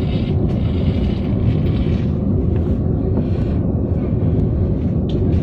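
Steady low rumble of a high-speed train, heard from inside the passenger carriage while it runs at speed.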